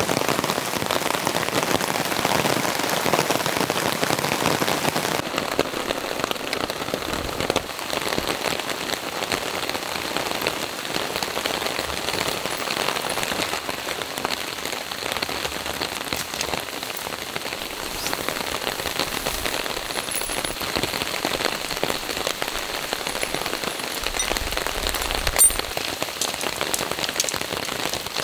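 Steady rain pattering on a camping tarp, a dense even crackle. It becomes a little duller about five seconds in. A single sharp click near the end is the loudest sound.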